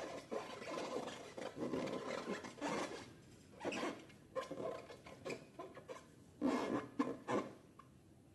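Hands squeezing and working slime, making irregular squishing and rubbing noises in short bursts.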